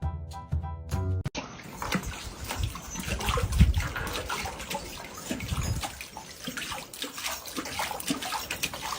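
Water splashing and sloshing, with many irregular splashes, the biggest about three and a half seconds in; a short burst of music plays in the first second before the splashing starts.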